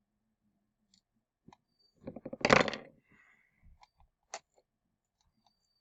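Clicks and a short clatter of small hard parts and tools being handled during repair of a singing toy dog's mouth mechanism, loudest about two and a half seconds in, with a single sharp click a little later.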